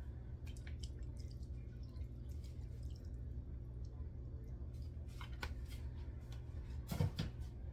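Soy sauce poured from a bottle over raw chicken pieces, with scattered small drips and splashes, and a single louder knock near the end.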